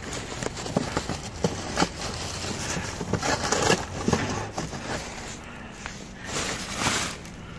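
Dumpster contents being dug through and shifted: irregular crackling, crunching and knocks of packaging and trash, a few louder strokes now and then.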